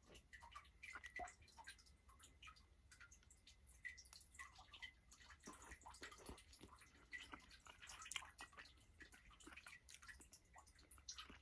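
Faint, irregular wet clicks and small ticks of someone tasting a hot cooked tomato: mouth and eating sounds, with an occasional light utensil tap.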